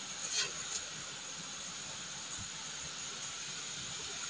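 A steady, even hiss, with a couple of faint clicks in the first second.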